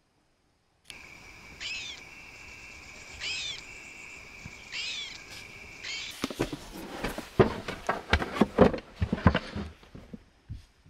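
An animal calling at night: four arched, high calls about every second and a half over a steady high whine. About six seconds in they stop and a run of loud rustles and knocks follows.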